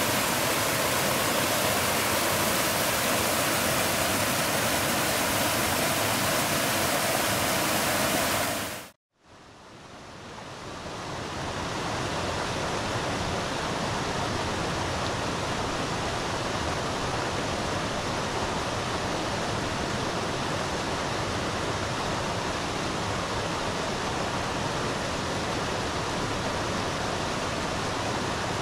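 Steady rush of flowing river water. It cuts out suddenly about nine seconds in, then fades back up over a few seconds to a slightly softer, steady rush.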